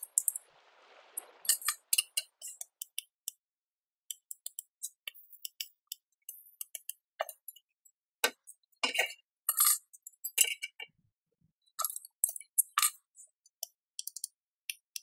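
Scattered sharp metallic clicks and short crackling bursts, thickest about eight and twelve seconds in: steel brackets being handled and tack-welded onto a rectangular steel tube.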